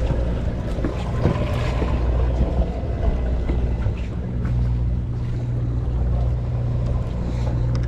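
Sportfishing boat's engine running with a steady low hum, under a haze of wind and water noise.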